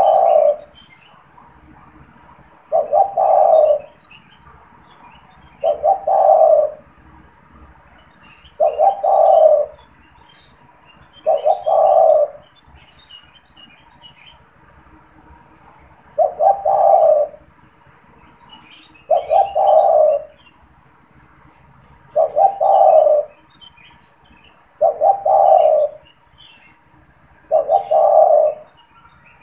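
Spotted dove (tekukur) cooing: a short phrase of a few quick coos ending in a longer note, repeated about every three seconds, with one longer pause midway.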